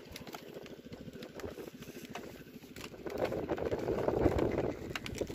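An engine running with a rapid, even pulse, growing louder about three seconds in.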